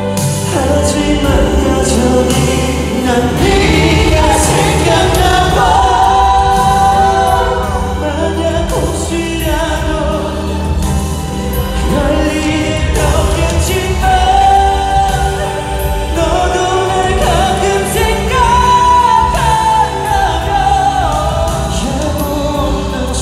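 Male vocalists singing live into handheld microphones over an amplified backing track, a slow K-pop song.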